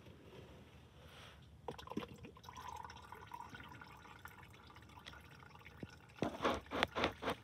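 Used engine oil dripping and trickling into a drain pan. A cluster of louder knocks and rustles comes near the end.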